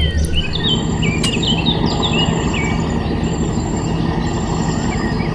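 Birds chirping in quick short notes, busiest in the first few seconds, over a steady low hum. A faint high insect-like buzz comes and goes in stretches.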